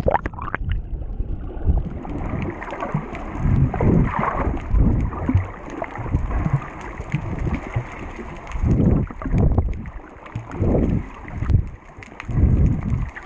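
Muffled underwater water noise heard through a submerged action camera's housing: a steady low rush of moving water with irregular deeper surges.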